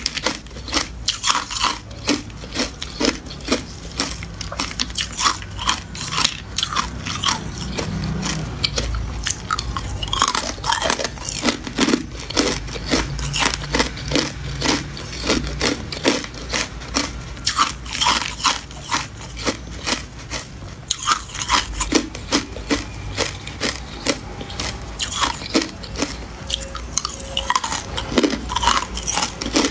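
Hard clear ice cubes being bitten and chewed: a quick run of sharp crunches, several a second.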